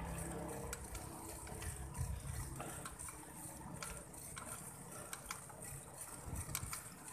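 Low, uneven wind rumble and road noise on a handlebar-mounted camera as a bicycle climbs slowly uphill, with scattered light clicks and rattles from the bike.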